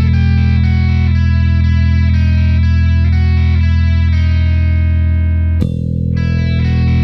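Squier Jaguar electric bass holding a low open-string note under a guitar-led rock backing track, the note struck again about five and a half seconds in.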